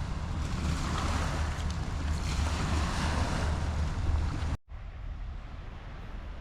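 Wind buffeting the microphone, a steady rushing noise with a heavy low rumble. It cuts off abruptly about four and a half seconds in, and a quieter steady rush carries on.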